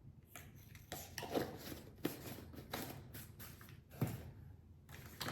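Soft handling sounds as powder tubs and a scoop are worked: a few irregular knocks and scrapes, about one a second.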